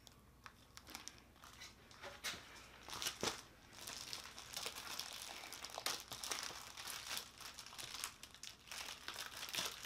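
Clear plastic bag crinkling and rustling as a plastic-wrapped laptop cover is handled, with a few sharper crackles.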